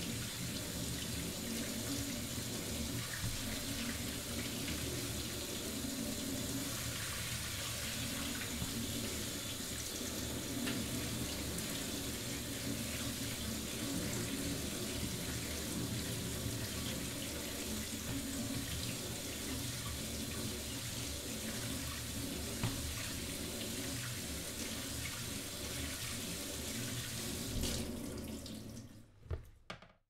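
Kitchen tap running into a plastic colander of grains being rinsed, a steady splashing of water through the grains. It fades out near the end, with a few small knocks.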